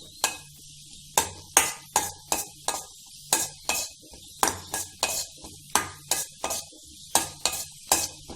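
A spoon repeatedly knocking and scraping against a kadai, about two or three times a second, as cashews and raisins are stirred while they fry in ghee, with a faint sizzle underneath.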